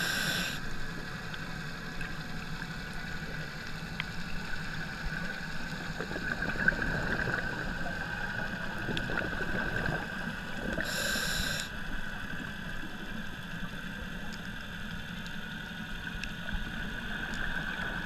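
Underwater sound of a scuba dive heard through a GoPro housing: a steady low rumble with faint scattered crackling. A short hiss, typical of the diver's regulator, comes right at the start and again about 11 seconds in.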